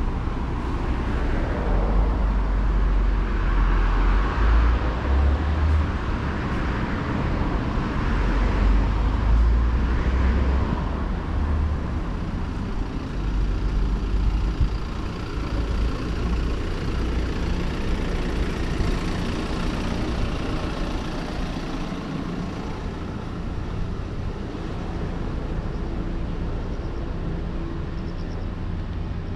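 City street ambience: road traffic passing, with a heavy low rumble through the first half that eases into a steadier background hum.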